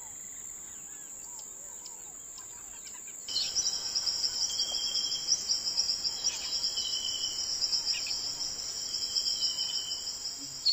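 Insects trilling in a high, steady buzz that starts suddenly about three seconds in, with faint bird chirps before and beneath it.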